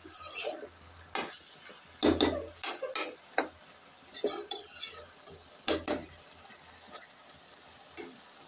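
Metal spatula scraping and knocking against a metal kadai as shredded cabbage and potatoes are stirred, in irregular strokes for about six seconds, then one faint knock near the end.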